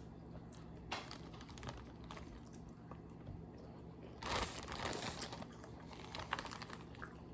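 Seafood shells being handled and cracked while eating: scattered light clicks, with a louder crackling run about four seconds in.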